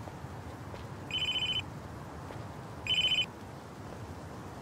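A mobile phone ringing: a short electronic ring tone sounds twice, about two seconds apart.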